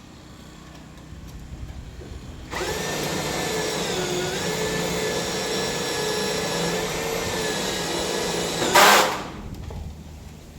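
Power drill starts about two and a half seconds in and runs steadily for about six seconds, its pitch dipping briefly as it bites under load and then recovering. It stops with a short, loud rasping noise.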